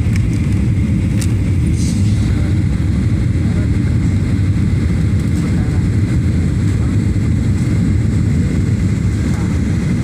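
Steady low rumble of jet engines and airflow, heard inside the cabin of a Boeing 737 airliner on final approach, just above the runway.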